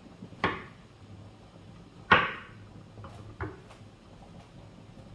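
Kitchen knife knocking on a wooden cutting board while cutting mushrooms: two sharp knocks about a second and a half apart, then two fainter ones, over a low steady hum.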